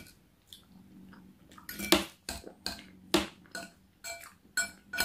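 Metal fork clinking and scraping against a china dinner plate, picking up food: a run of sharp clinks, roughly two a second, starting about two seconds in.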